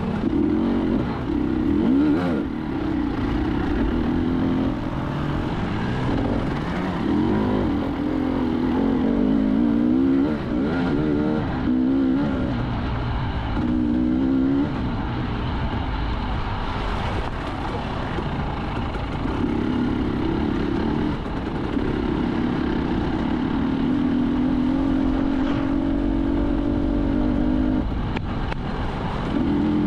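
Enduro motorcycle engine under way, its pitch rising and falling as the throttle is opened and closed, with a steadier run in the second half.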